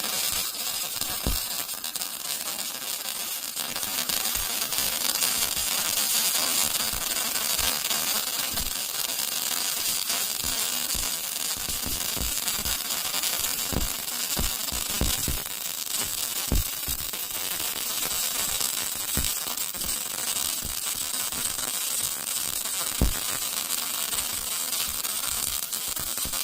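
Electric arc welding of steel plates onto steel pit props: a steady frying, crackling hiss of the arc with scattered sharp pops, running without a break.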